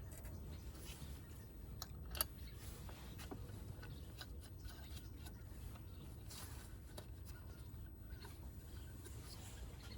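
Faint handling noises of hand work, a few light scattered clicks and rubbing, over a low steady hum; one slightly sharper click about two seconds in.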